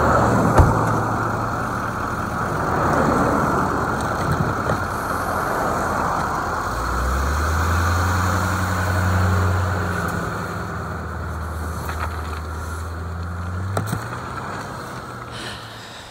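A vehicle being driven, its engine running with a low steady hum that strengthens about seven seconds in and eases off near the end, over a constant rush of road and wind noise, with a couple of sharp knocks.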